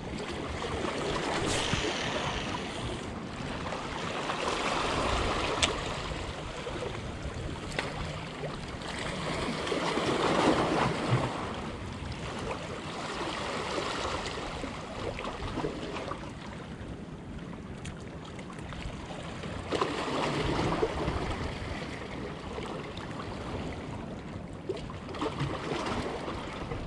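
Water washing and rushing in swells that rise and fade every few seconds, with wind on the microphone and a few faint clicks.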